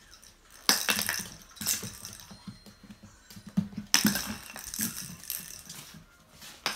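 A puppy's claws clicking and scrabbling on a hardwood floor as it darts after a ribbon toy: a few irregular sharp clicks and scuffs, the loudest under a second in.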